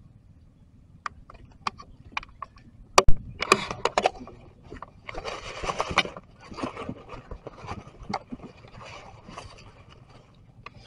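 Dry leaf litter crackling and rustling under movement: scattered sharp crackles, a loud snap about three seconds in, then irregular bursts of crunching and rustling.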